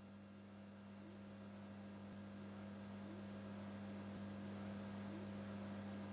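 Steady low electrical hum at two pitches, slowly growing a little louder, with no cutting strokes heard.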